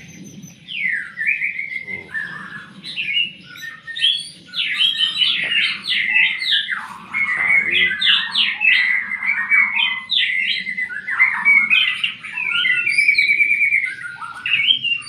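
Birds chirping and singing in quick, varied chirps, sweeps and trills, almost without pause, starting about a second in.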